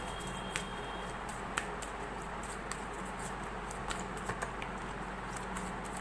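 A deck of astrology cards being handled and drawn: scattered light clicks and taps of card edges over a steady background hiss and low hum.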